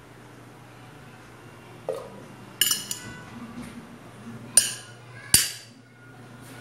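Metal fork clinking against dishes: four sharp clinks, the first about two seconds in.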